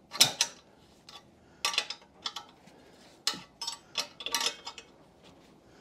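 Combination spanner clinking on the exhaust hanger bracket's bolt as it is turned: a string of short, sharp metallic clicks and clinks at irregular intervals, several bunched together about four seconds in.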